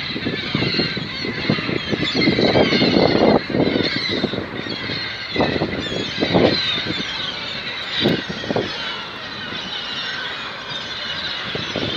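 A flock of gulls calling over one another, many overlapping cries without pause, over repeated low rumbling gusts.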